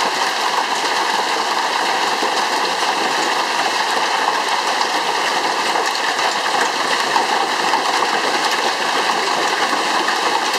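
Heavy hailstorm: a loud, steady, dense clatter of countless hailstones striking at once, with no let-up.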